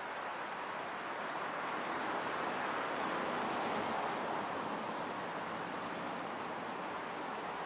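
Distant city traffic noise: a steady rush of passing vehicles that swells about three to four seconds in and then eases off.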